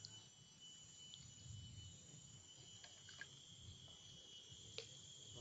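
Faint, steady, high-pitched chorus of insects such as crickets, with a low background rumble and a few faint clicks, one sharper click near the end.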